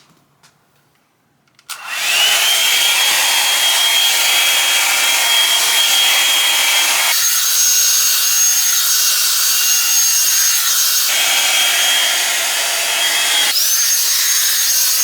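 Drybar Double Shot blow-dryer brush switched on about two seconds in and running steadily, a loud rush of air with a thin motor whine. The whine jumps to a higher pitch and back a few times as the hair is dried over the brush.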